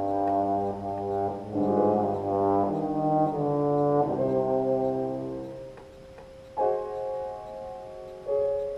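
Trombone playing a melody with piano accompaniment. The trombone stops about six seconds in, and the piano carries on alone with held chords.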